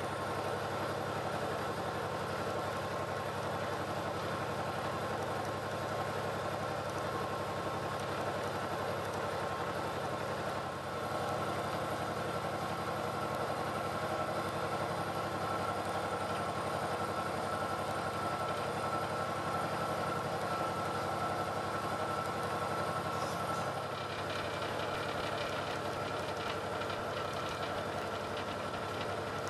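Boat engine running steadily while the boat cruises along: a constant low drone with a steady high whine over it.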